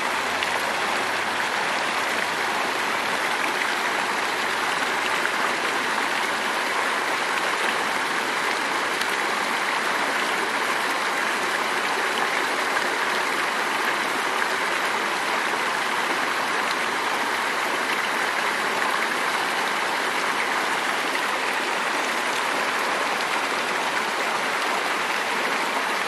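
Purgatoire River flowing: a steady rush of running water with no change throughout.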